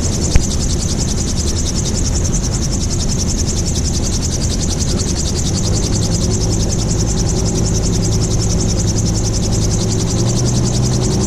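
MT-03 gyrocopter in flight: steady engine and rotor drone with wind rush over the open cockpit. A sharp click comes about half a second in, and about halfway through the engine's hum grows stronger and steadier.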